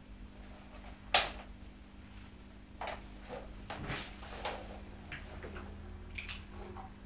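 Handling noises as an electric guitar is picked up and a person sits down with it in an office chair: scattered knocks, bumps and rustles, with one sharp knock about a second in. A steady low hum runs underneath.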